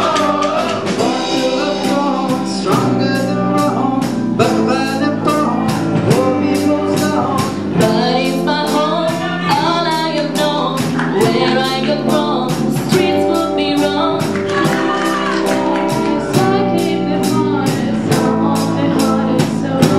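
Young singers performing a pop song live at microphones over sustained chords and a steady beat of about two hits a second. A female voice takes the lead, then a male voice near the end.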